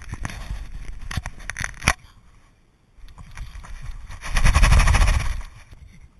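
Close-up handling noise on the camera: sharp knocks and clicks for the first two seconds, then, after a short lull, a loud rubbing with a heavy rumble about four seconds in as a hand rubs the black pug's fur against the camera.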